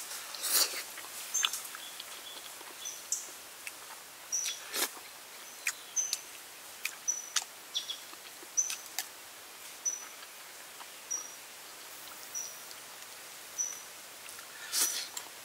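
Close-up eating sounds: sharp clicks and smacks of chewing, loudest about half a second in, near five seconds and near the end. Behind them a short high chirp repeats steadily, about once every second and a bit.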